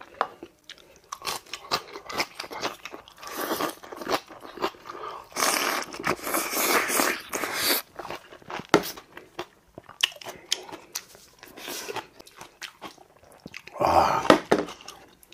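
A man chewing ripe kimchi close to the microphone: wet crunching bites coming in irregular bursts, loudest for a couple of seconds in the middle.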